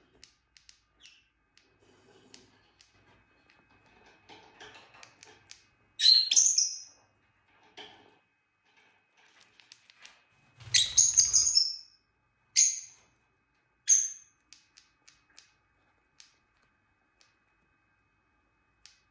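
Lovebirds chirping: four short bursts of shrill, chattering chirps between about six and fourteen seconds in, the loudest around eleven seconds. Soft beak clicks and rustling from a lovebird nibbling a plant leaf fall in between.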